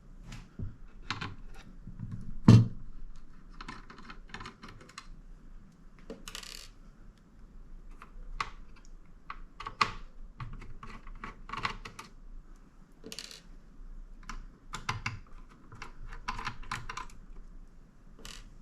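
Irregular small clicks, taps and plastic rattles of a mini desktop PC's internal cooling fan being unclipped and lifted out of its chassis, with one sharper knock about two and a half seconds in.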